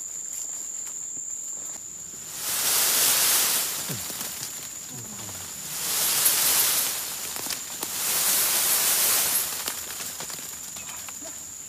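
Branches of a large Chinese bayberry tree shaken hard in three bouts, leaves rustling loudly each time as the fruit is shaken down. A steady high-pitched insect drone runs underneath.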